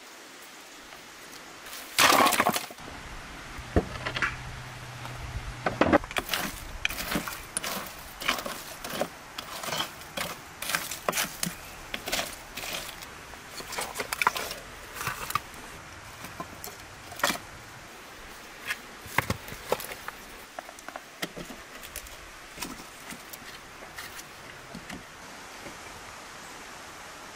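Split firewood logs knocking and clattering against each other as they are dropped and handled. Many sharp knocks, the loudest a clatter about two seconds in, with fewer knocks after about twenty seconds.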